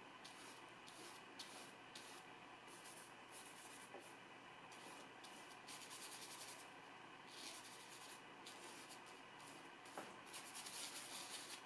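Long-bristled hog-hair flat brush working oil paint on paper and palette: a series of faint, short, scratchy brush strokes, quicker in bursts about halfway through and near the end.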